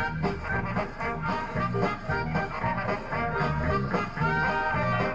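Swing-style recorded music with brass, over a steady, repeating bass line.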